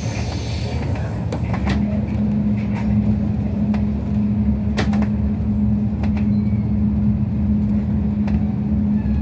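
Train running, heard from inside the carriage: a steady low rumble, a steady hum that sets in about two seconds in, and a few sharp clicks and knocks scattered through.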